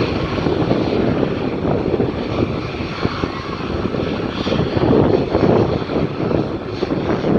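Airbus A350's Rolls-Royce Trent XWB turbofans at take-off thrust: a loud, rough jet noise, heaviest in the low range and full of crackle, swelling and easing in strength.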